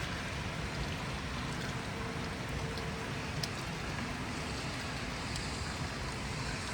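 Steady rumbling vehicle noise with some wind, without a clear rhythm or any single loud event.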